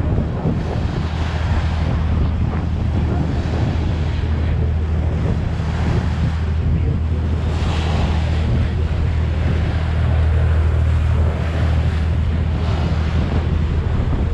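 Passenger ferry under way: a steady low engine drone with the rush of the wake along the hull and wind buffeting the microphone, swelling in gusts every few seconds.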